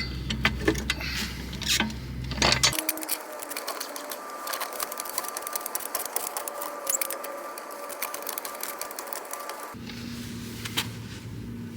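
Rapid metallic clicking and clatter of hand tools turning a stripped lug bolt out with a twist extractor socket. The low background hum drops away about three seconds in and returns near the end.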